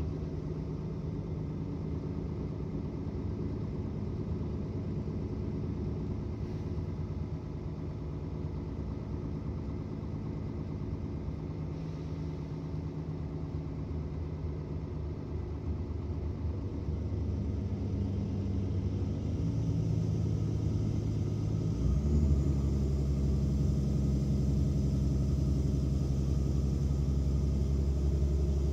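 Mercedes-Benz Citaro O530 city bus diesel engine running with a steady low drone. It grows louder from about two-thirds of the way in, and then jumps abruptly to a deeper, heavier drone, typical of a kickdown to full load.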